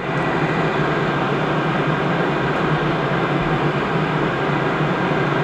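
A 6-inch inline duct fan running steadily, a constant rush of air with a low hum, blowing air up through a homemade tornado-vortex machine.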